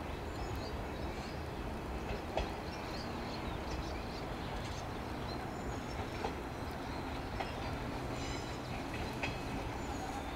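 JR 105 series electric train approaching slowly: a steady low rumble of wheels and traction motors, with occasional clicks from the wheels on the rails. It grows a little louder and deeper near the end as the train draws closer.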